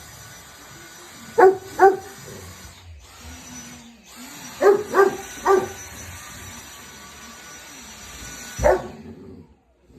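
A Bernese Mountain Dog barking at a running vacuum cleaner: two barks, then three, then one more near the end. The vacuum's steady high hiss runs underneath and cuts off just after the last bark.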